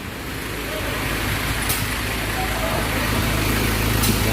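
Car engine idling steadily after a jump start, left running with the jumper cables still attached so that the weak battery can recharge.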